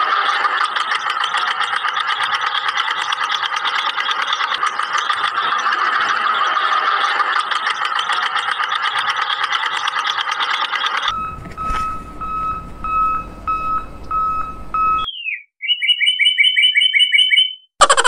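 Tractor engine sound effect running steadily for about eleven seconds, then a pulsing beep over a low rumble, then a run of short repeated chirps near the end.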